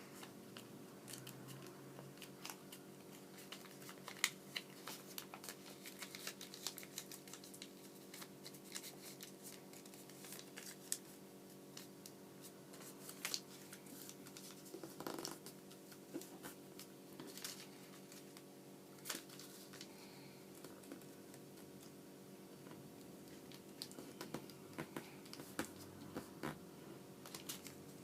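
Origami paper being folded and creased by hand: faint, irregular crinkles and rustles, over a steady low hum.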